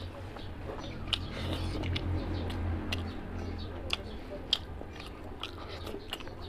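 A person chewing a mouthful of curry and rice close to the microphone, with wet mouth smacks and sharp clicks scattered through.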